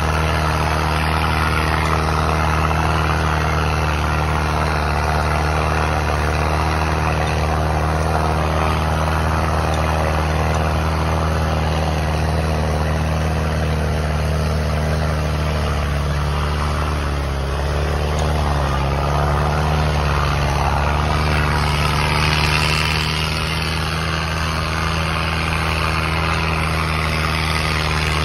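Diesel farm tractor engine running steadily under heavy load while pulling two harrows in a tractor power test.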